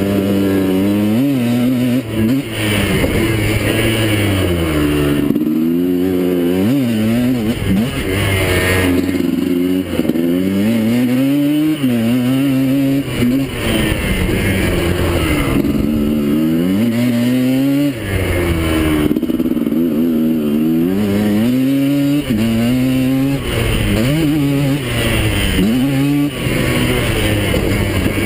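Yamaha Blaster quad's single-cylinder two-stroke engine revving under load: its pitch climbs, drops back, and climbs again over and over as the rider accelerates, shifts and backs off.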